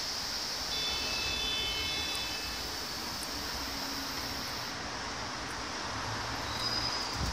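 Steady vehicle noise, with a brief cluster of thin, high tones starting about a second in and lasting about two seconds.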